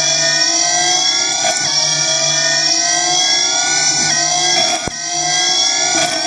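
A machine tool's motor or spindle whining steadily, its pitch climbing slowly, with a few faint clicks.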